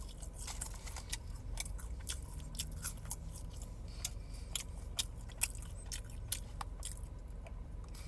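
A person chewing and biting McDonald's food close to the microphone: a string of small irregular crunching clicks.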